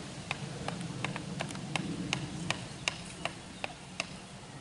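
A hatchet's back hammering a wooden stake into the ground: sharp, slightly ringing knocks at about three a second, over a low steady hum.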